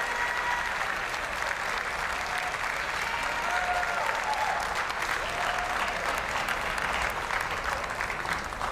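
Large arena audience clapping steadily, with a few short cheers from the crowd.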